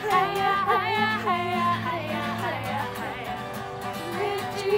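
A song sung by several voices with a strummed acoustic guitar accompanying them.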